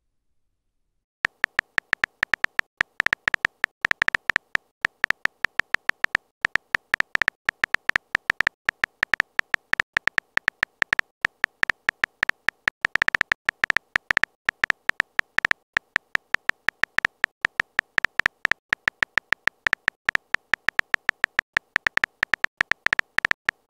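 Texting-app keyboard tap sound effect: rapid, uneven clicks with a short pitched beep to each, one per typed letter, starting about a second in and running on in quick bursts of typing.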